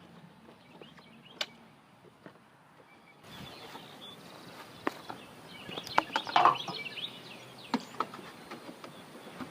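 Scattered clicks, taps and knocks of hand work on a travel trailer's damaged corner trim and siding, getting busier about three seconds in, with birds chirping in the background.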